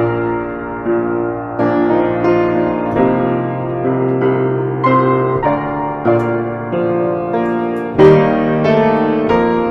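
Solo piano playing an instrumental piece, notes and chords struck roughly every second, with a louder chord about eight seconds in.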